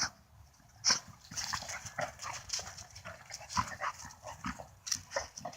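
A dog close by, making short irregular snuffling sounds, clicks and rustles, with one sharp click about a second in.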